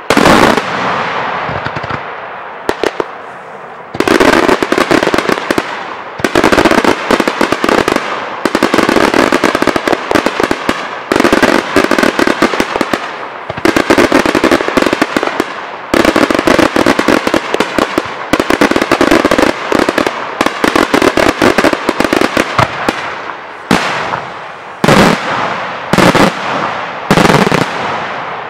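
Daytime aerial fireworks: shells and salvos bursting overhead in dense, fast runs of loud bangs that last several seconds each, with brief pauses between runs. Near the end the volleys come in shorter, separate bursts.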